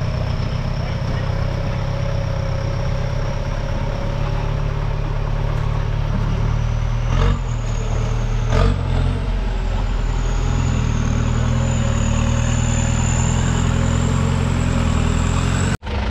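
Modified off-road jeep's engine running steadily as it pulls up a steep muddy bank out of a stream, with two sharp knocks about a second and a half apart midway through.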